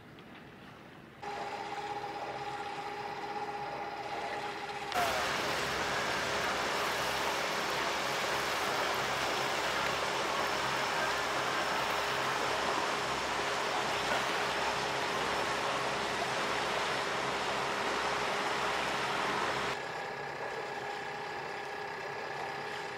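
Small quadcopter drone's motors and propellers running with a steady high hum. About five seconds in, a loud rushing noise covers it for some fifteen seconds, then drops away, leaving the hum.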